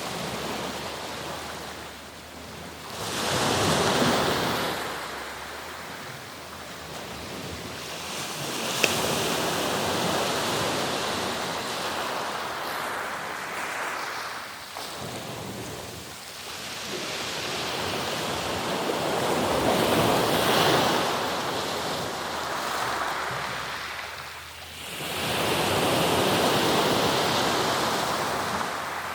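Sea surf: waves breaking and washing up the shore in about four slow surges several seconds apart, each swelling and then draining away. A single sharp click is heard about a third of the way in.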